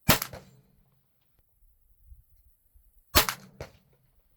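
Two shots from a Ruger 10/22 semi-automatic .22 LR rifle firing Federal AutoMatch rounds, about three seconds apart. Each sharp report is followed about a third of a second later by a weaker echo.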